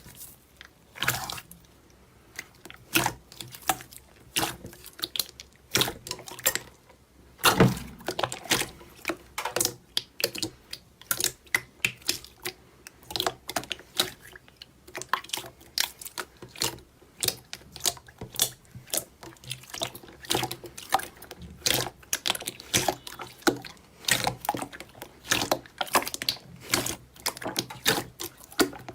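Slime being squeezed, poked and stretched by hand, making irregular wet clicks and pops, a few a second.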